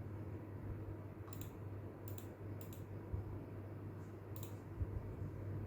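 Computer mouse button clicking about five times at uneven intervals, short sharp clicks over a steady low hum.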